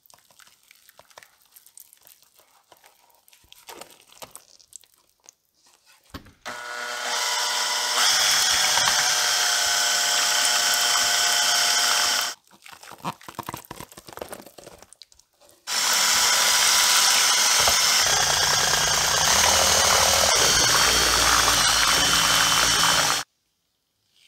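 Power drill with a mixing paddle stirring plaster into water in a plastic bowl. It runs twice at a steady speed, first about six seconds in and again a few seconds after it stops, winding up to speed at the start of the first run. Before that there are only faint light crackles as plaster powder is sprinkled onto the water.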